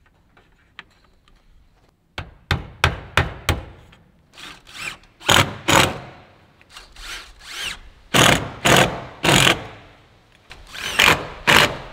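Handheld cordless drill/driver run in a quick series of short trigger bursts, fastening metal J-channel trim beside a window.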